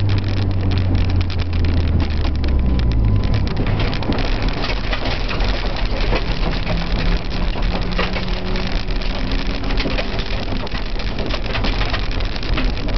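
Honda Civic's engine running until about three seconds in, when its note drops away as the car leaves the track. Then tyres rolling over loose gravel and rough ground, with a steady crackling patter of stones hitting the car's underside.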